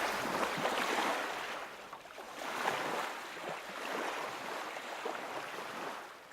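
Water washing like waves: a noisy rush that swells and fades in uneven surges.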